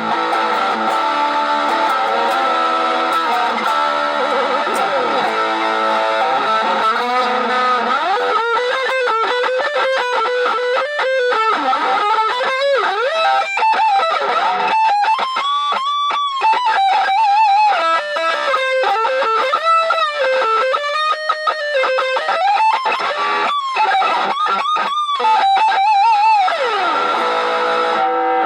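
Music played on an electric guitar: held, layered chords for about the first eight seconds, then a lead melody with pitch bends and vibrato.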